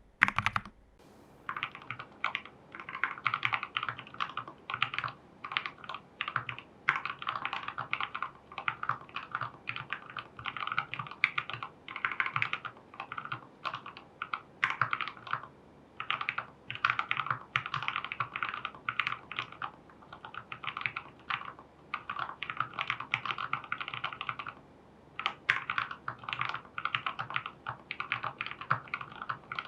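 Typing on a plateless TU40 mechanical keyboard in a plastic case with case foam, PCB foam and tape mod, fitted with lubed Gateron Pro Milky Yellow linear switches and lubed Owlab stabilisers: fast runs of keystrokes that start about a second in and pause briefly a little past three-quarters of the way through.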